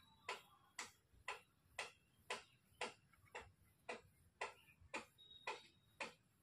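Faint, regular ticking, about two sharp clicks a second at an even pace.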